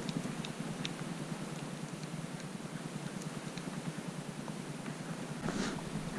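A hunter's footsteps over dry grass and rocks on a steep slope, with small scattered ticks of brush and stones and a louder scuff about five and a half seconds in, over a steady low rumble.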